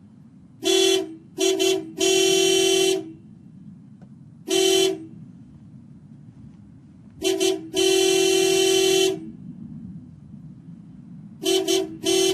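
A horn honking in a repeated pattern: a couple of short toots followed by a long blast of about a second. A single short toot comes in the middle, and the pattern starts again near the end.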